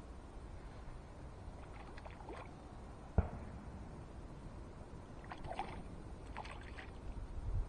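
Light splashes on a still lake as cast float tackle lands in the water, with one sharp knock about three seconds in.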